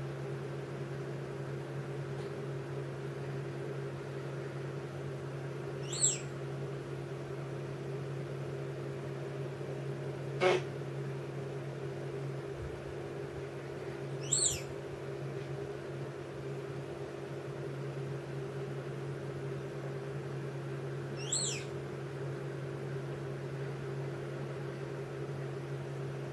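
Pet parrot giving three short, high chirps several seconds apart, over a steady low hum. A single sharp click comes between the first two chirps.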